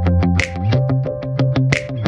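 Background music with a bass line and a quick, steady ticking beat.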